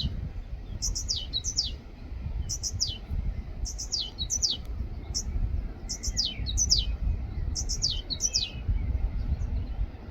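A small songbird calling: short, high notes that each sweep downward, in pairs or threes, repeated about every second and a half. A steady low rumble lies underneath.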